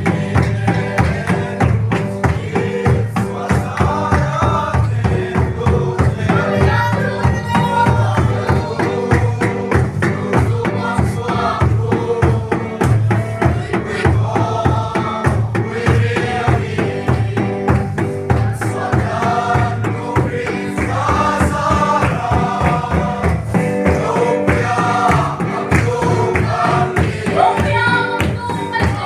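A group of voices singing a gospel song together over a steady, driving percussion beat.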